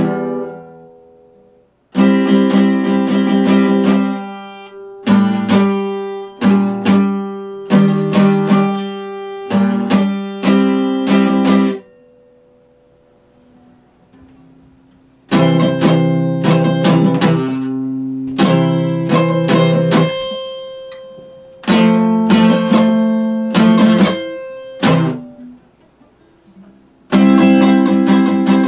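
Epiphone acoustic guitar strummed in runs of chords that cut off sharply. There are short pauses between runs, and a longer gap of about three seconds near the middle.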